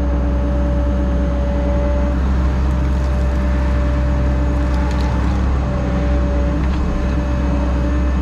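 Diesel engine of an excavator running steadily with a constant hum, as dirt is pushed in to backfill. A few faint knocks sound about three and five seconds in.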